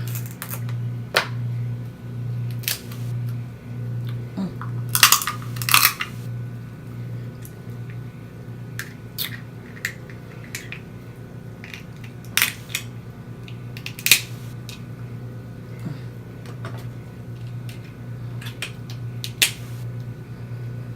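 Eating snow crab legs close to the microphone: scattered sharp clicks, cracks and mouth smacks, thickest about five seconds in, over a steady low hum.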